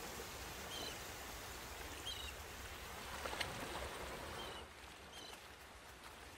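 Quiet beach ambience: a steady soft hiss of surf, with a small bird chirping several times.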